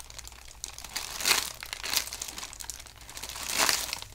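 Clear plastic packaging bag crinkling in a few loud bursts as hands squeeze the slow-rising foam squishy sealed inside it.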